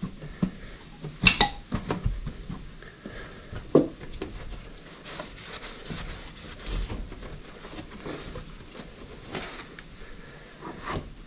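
A soft towel rubbing over the painted sheet metal of a 1961 VW Beetle's engine bay, buffing off freshly applied polish, in short hissing swipes. A few light knocks and clinks come with it, the sharpest about a second in and near four seconds.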